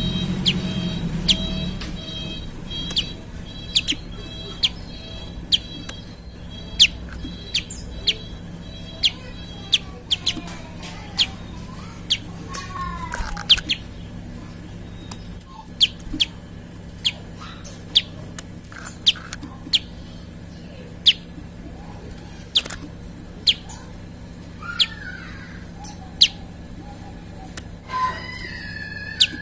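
Prinia (prenjak) giving a long series of sharp, very short chip calls, about one to two a second, with a few brief trilling phrases in between.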